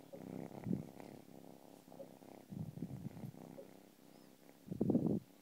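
A kitten purring close to the microphone, in pulses that swell and fade every second or two, the strongest near the end.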